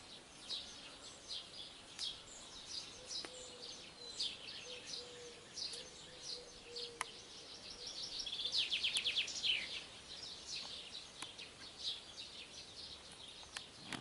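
Songbirds singing: a steady run of short, high chirps and calls, with a fast trill of rapid repeated notes about nine seconds in.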